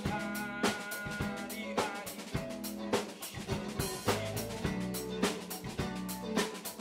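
Live band playing a rock song: drum kit keeping a steady beat with electric bass and electric guitar.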